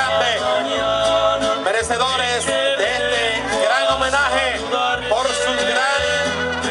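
Music: a man singing long, held melody notes over a bass line.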